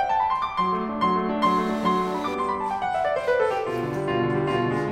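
Background piano music in a classical style, a steady flow of quick notes.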